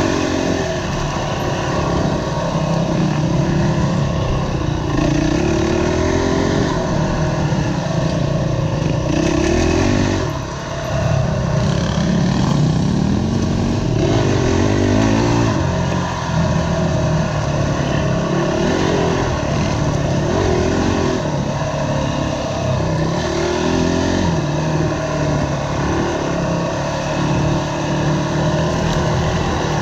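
On-board sound of a Honda CRF dirt bike's single-cylinder four-stroke engine being ridden hard, its pitch rising and falling again and again as the throttle opens and closes. The engine briefly eases off about ten seconds in.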